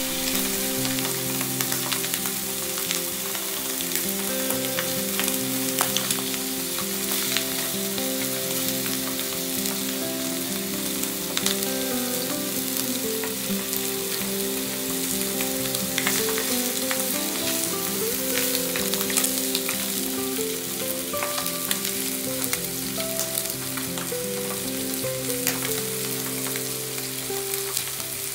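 Marinated chicken thighs sizzling skin side down in a non-stick frying pan over high heat, with a steady hiss and frequent small crackles of spitting fat.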